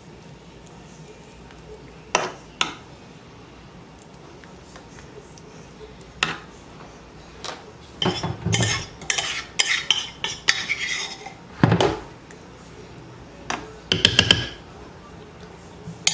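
Kitchen clatter of a metal spoon and dishes: scattered clinks and knocks against the casserole pan and other dishes, a couple early on, a busier run of clatter in the middle and a few sharper knocks toward the end.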